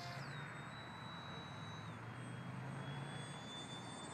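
RC model airplane's motor and propeller whining as it flies low. The pitch jumps up briefly at the start and falls back, holds steady, then drops a little about two seconds in as the throttle changes.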